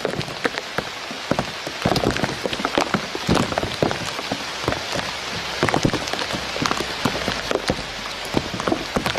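Dense, irregular patter of many small ticks over a steady hiss, the kind of sound rain makes falling on water and leaves.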